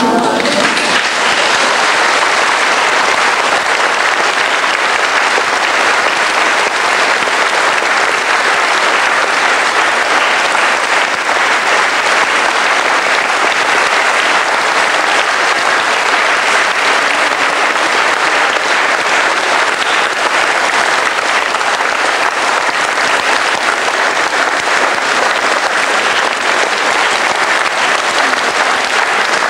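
Congregation applauding in a church: a long, steady round of clapping that holds at one level throughout.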